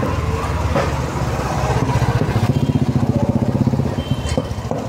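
Street traffic dominated by a small motor vehicle engine running, with a rapid even pulsing that is loudest around the middle and fades near the end.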